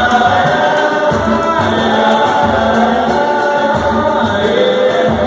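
Samba group performing live: several voices singing together over a pulsing bass and light percussion.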